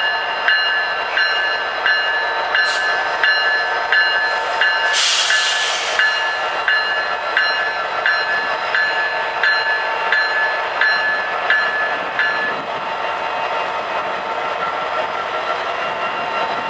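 Norfolk Southern freight train passing: the lead diesel locomotives go by, then loaded hopper cars and boxcars rolling steadily over the rails. A bell strikes evenly a little under twice a second and stops abruptly about three-quarters of the way through, and there is a brief hiss about five seconds in.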